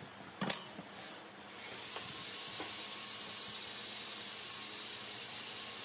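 A sharp knock of a tool set down on the workbench about half a second in, with a few faint ticks after it, then a steady even hiss from about a second and a half on.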